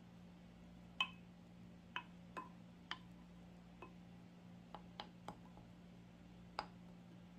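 A spatula knocking against the side of a Pyrex glass measuring jug while stirring rice, about ten sharp, irregular clicks with a short glassy ring, the loudest about a second in and near the end. A faint steady hum lies underneath.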